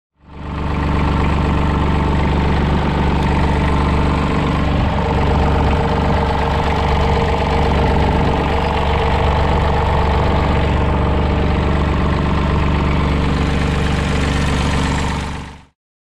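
A 2014 Terramite T9 backhoe loader's diesel engine idling steadily. The sound fades in at the start and fades out near the end.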